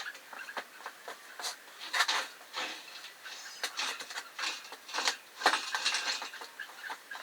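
Irregular light metallic clinks and knocks with a few short squeaks, from a loaded engine hoist being shifted on its castors.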